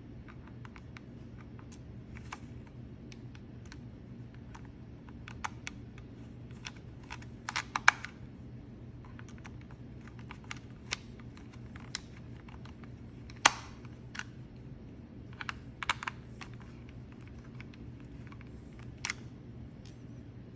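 Irregular small plastic clicks and taps from the parts and screws of an Xbox One controller being handled during reassembly, with a cluster of louder clicks about eight seconds in and a sharp one a little past halfway. A steady low hum runs underneath.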